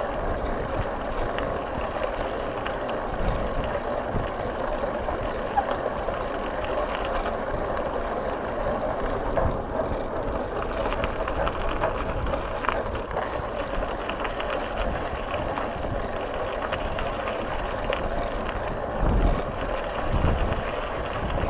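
Tyres rolling steadily over a loose gravel track, with wind rushing over the camera microphone. A few low bumps come near the end as the ride jolts over the track.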